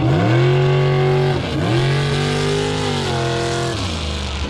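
Big off-road truck engine revved hard twice. Each time the pitch climbs, holds high for a second or two, then falls, with a short dip between the two revs about a second and a half in.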